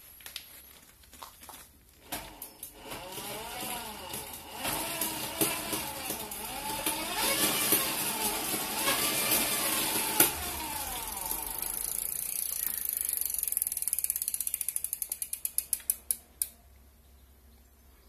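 A 250 W 24 V e-bike motor kit driving the rear wheel, its whine rising and falling several times as the throttle is opened and closed, with a sharp knock about ten seconds in. Then a ratchet clicking, the clicks slowing and stopping about sixteen seconds in as the wheel coasts down.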